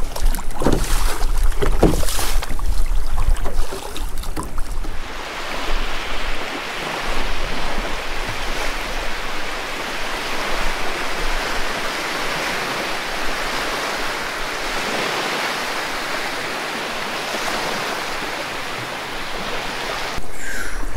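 Choppy water splashing around a kayak being paddled, with wind rumbling on the microphone in the first few seconds. After about five seconds it settles into a steady wash of water, and the wind rumble returns near the end.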